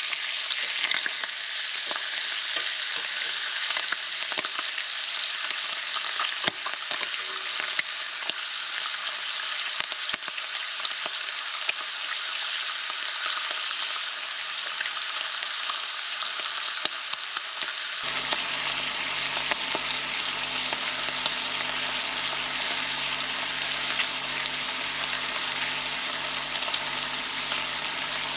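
Bacon sizzling and crackling in a grill pan on a portable gas stove, a steady frying hiss full of small pops. About two-thirds of the way in a low hum joins it.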